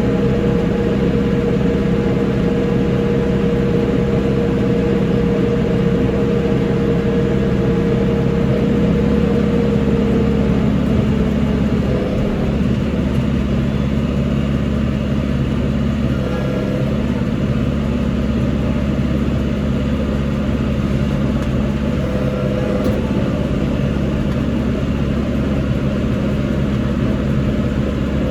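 Tractor engine running steadily under work, with a steady whine that fades out about ten seconds in.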